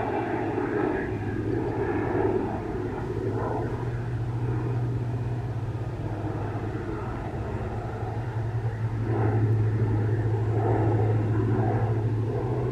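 PZL-130 Orlik turboprop aircraft in flight: a steady engine-and-propeller drone with a strong low hum, swelling slightly about nine seconds in.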